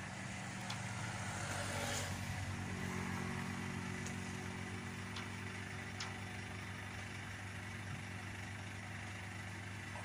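A vehicle engine idling steadily: an even low hum that holds the same pitch throughout, with a few faint ticks.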